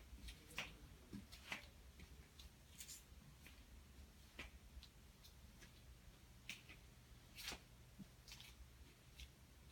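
Near silence: room tone with a faint low hum and a few scattered soft clicks.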